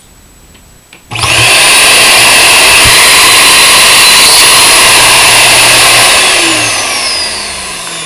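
A 1400-watt backpack vacuum cleaner motor switched on bare, starting abruptly about a second in and running loud with a high whine and rushing air. Near the end it winds down, its pitch falling as it spins to a stop.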